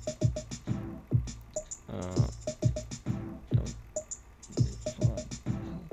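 Background electronic music with a steady drum-machine beat: deep kicks, crisp high hits and short repeated synth notes.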